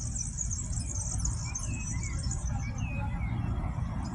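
Many small birds chirping and twittering at once in a dense, high-pitched chorus. A few separate, lower, downward-sliding chirps stand out in the middle, over a steady low rumble.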